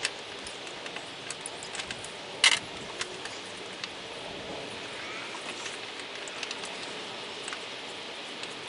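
Steady hiss of light rain falling outdoors, with scattered small clicks and one sharper click about two and a half seconds in as metal battery hold-down parts are handled and pressed into place.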